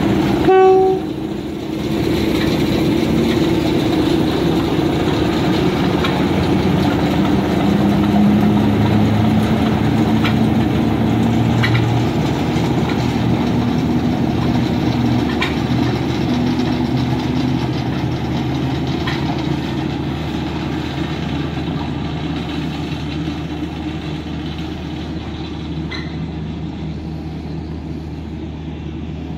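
Diesel shunter of the Dutch class 08 type sounding a short horn blast about half a second in, then its engine running steadily as it pulls away. A few sharp clicks of wheels over rail joints come through, and the engine fades gradually as it recedes.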